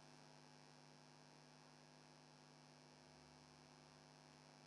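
Near silence, with a faint steady electrical hum.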